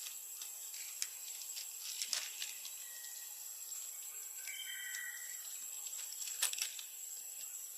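Faint scattered clicks and wet smacks of a baby macaque suckling milk, with a brief high squeak about halfway through, over a steady hiss.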